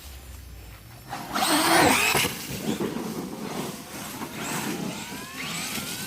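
Brushless motor of a ZD Racing Pirates 2 1/8 RC monster truck, with a loud burst of rushing noise about a second in. Near the end the motor's whine rises steadily in pitch as the truck accelerates.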